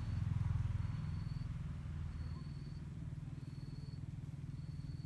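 A small engine running steadily, a low even rumble that eases slightly after the first second. A short, thin, high-pitched chirp repeats about every second and a quarter.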